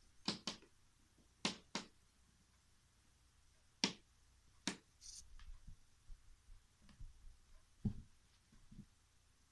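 A cat moving in and around a cardboard box. There are scattered sharp taps and clicks, a brief rustle about five seconds in, and a few dull knocks near the end.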